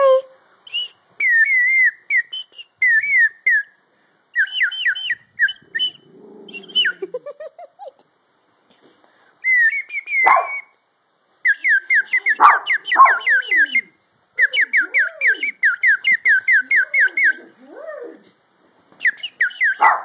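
Water-filled bird-call whistle blown in bursts of warbling chirps, then long fast trills of about five chirps a second, with a dog whining in the gaps.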